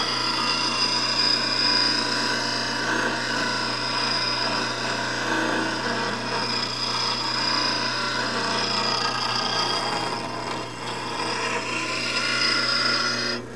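8-inch bench grinder wheel grinding the bevel of a steel bowl gouge held in a sharpening jig: a steady rasping hiss over the motor's hum, easing briefly about ten seconds in. The grinding stops suddenly near the end while the motor keeps running. This is the final pass to even up the two sides of the grind.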